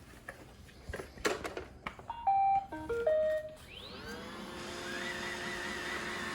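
Roomba 960 robot vacuum started up: a few clicks, then its short melody of electronic beeps, then the vacuum motor spinning up with a rising whine into a steady run. A high wavering squeak rides over the motor: it is still there with the brush rollers taken out, so the rollers are not its cause.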